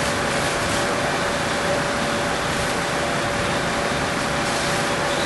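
Fire engine running its pump steadily: a constant mechanical hum with one steady tone over an even rushing noise.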